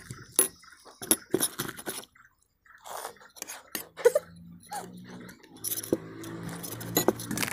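Two people chewing mouthfuls of puri with curry: wet mouth smacks and short clicks coming quickly and irregularly, with a brief pause about two seconds in.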